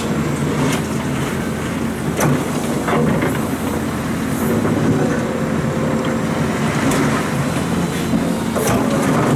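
Liebherr R926 excavator's diesel engine running steadily under working load, with several sharp knocks and clatters of the bucket and gravel spread through it.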